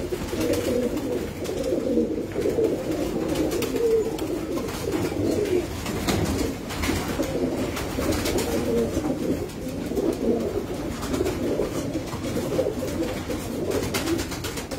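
Domestic loft pigeons cooing, many calls overlapping into a continuous low murmur.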